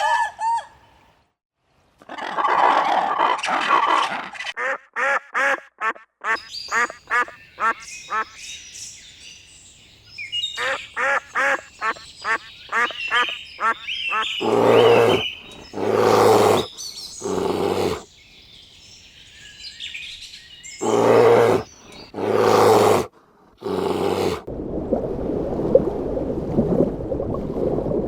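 A run of different animal calls, birds among them. A trill and fast runs of chirps come first, then five loud calls in two groups, and a steady noisy rush fills the last few seconds.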